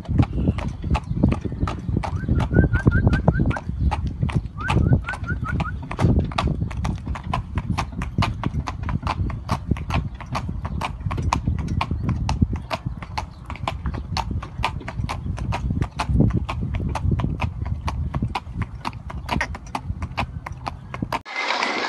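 Hooves of a palomino Andalusian drawing a single carriage, a steady, even clip-clop on asphalt over a low rumble. Two short runs of high chirps come about 3 and 5 seconds in, and just before the end the sound cuts to a steady rush of noise.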